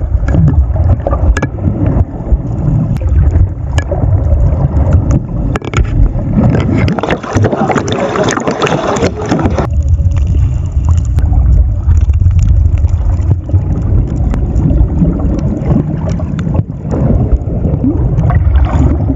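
Muffled underwater rumble and rushing water picked up by a camera held submerged among a netted school of tuna and mahi-mahi, with a louder stretch of swirling, bubbling water noise in the middle and scattered small knocks.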